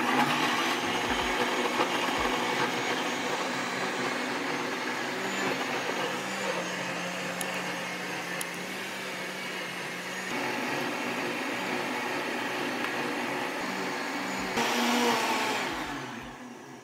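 Electric blender running steadily as it purées eggs, apple, raisins, carrot and coconut oil into cake batter. The sound shifts slightly about ten seconds in and again near the end, then fades out as the blender stops.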